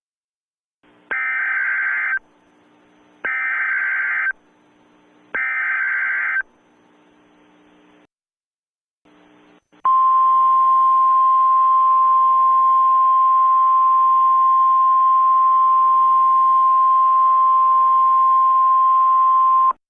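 Emergency alert broadcast tones: three one-second bursts of SAME data header, then a steady single alarm tone of about 1050 Hz that holds for about ten seconds before cutting off. Together they mark the start of a new weather warning.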